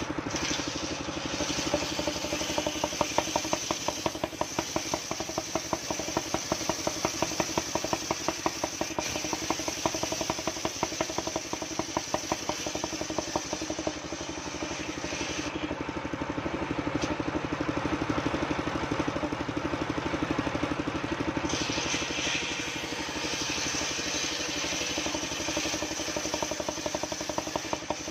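Engine of a mobile circular sawmill running steadily with an even rapid beat. A higher hiss above the engine drops away for several seconds in the middle, then returns.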